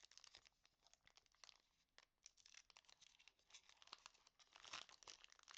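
Foil wrapper of a Pokémon TCG booster pack crinkling and being torn open, a dense run of crackles that grows louder near the end.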